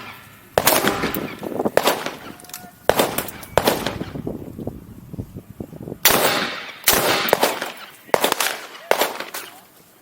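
Rifle shots fired in an uneven string during a practical rifle stage, about eight shots in ten seconds with short pauses between groups. Each shot is sharp and followed by an echo.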